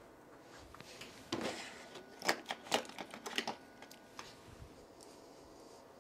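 Bench handling noise: a brush of cloth close to the microphone, then a quick run of sharp plastic clicks and knocks as test leads and connectors are handled and unplugged.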